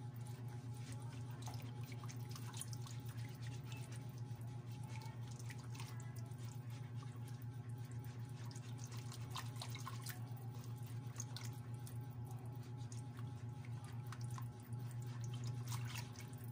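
A wire balloon whisk beating a thin, runny rice-flour and coconut-milk batter in a metal pan: steady sloshing and splashing, with light irregular clinks of the wires against the pan. A steady low hum runs underneath.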